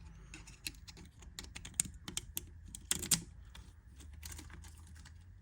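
Irregular light metallic clicks and rattles of a key being worked in a Kryptonite New York U-lock, with a louder cluster of clicks about three seconds in.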